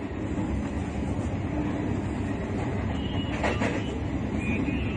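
Passenger train running, heard from inside the carriage: a steady low rumble of wheels on the track.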